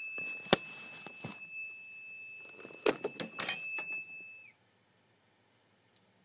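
Gent Vigilon Compact fire alarm panel's built-in piezo sounder giving a steady high-pitched tone while the panel sits in fault. There are a few sharp clicks and knocks of handling, and the tone cuts off suddenly, with a slight drop in pitch, about four and a half seconds in.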